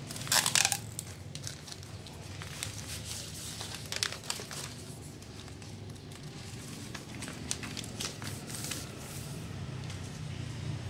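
Stiff two-sided florist wrapping paper crinkling and rustling as it is handled and smoothed flat. The loudest crinkling comes in a burst just after the start and again about four seconds in, over a steady low hum.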